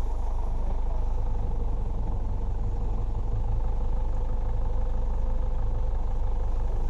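Safari vehicle's engine running steadily.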